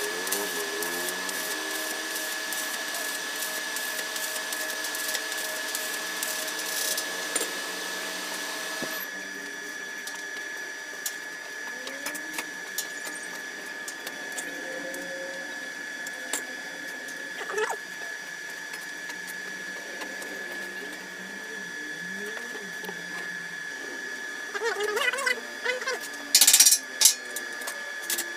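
Electric arc welding crackling and hissing for about nine seconds, then stopping abruptly. Scattered metallic clicks and taps follow, with a couple of louder clattering hits near the end.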